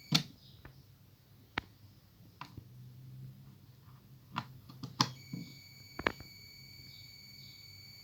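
A charger whistling: a steady high-pitched whine that stops right at the start and comes back about five seconds in. Several sharp clicks or knocks fall in between, the loudest near the start and around five seconds in.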